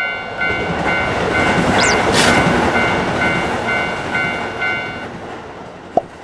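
Japanese level-crossing warning bell ringing its 'kan kan' alarm, about two and a half dings a second, over the rushing noise of a passing train. The train noise swells to a peak about two seconds in and then fades, with a brief high squeal near its peak, and the bell stops about five seconds in.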